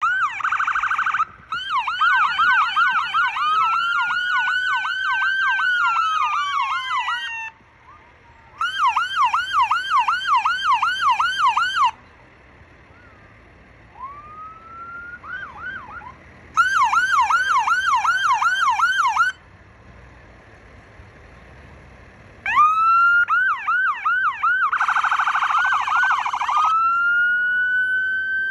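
Police cruiser siren sounded in short bursts a few seconds apart. It switches between a fast yelp of about four sweeps a second, a slow rising and falling wail, and a very rapid piercing warble. Near the end comes a long wail rising to its peak.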